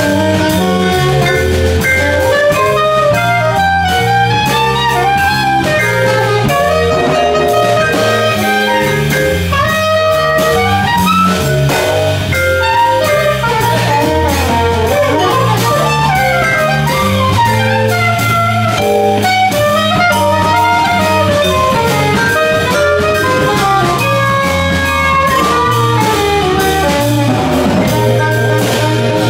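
Live jazz waltz: a Yamaha vibraphone soloing in quick mallet runs over a walking bass line and drum kit.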